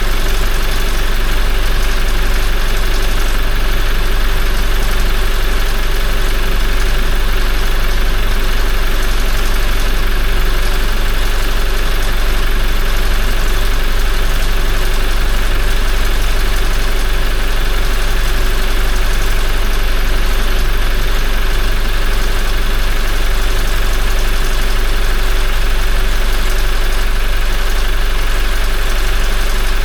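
Toyota 1GD-FTV 2.8-litre four-cylinder turbodiesel idling steadily, newly started on fresh oil.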